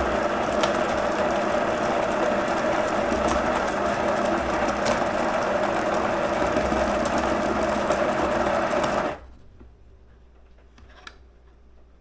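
Electric coffee grinder running steadily, grinding beans for a double espresso shot, then cutting off suddenly about nine seconds in.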